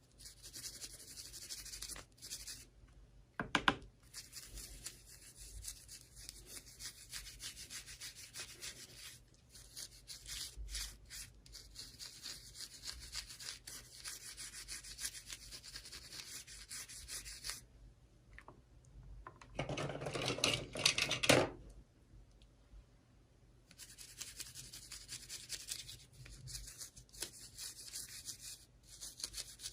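Hands rubbing and rustling packaging while unboxing a toy, a dry scratchy friction sound that pauses now and then, with a sharp snap about three and a half seconds in and a louder stretch of crinkling about twenty seconds in.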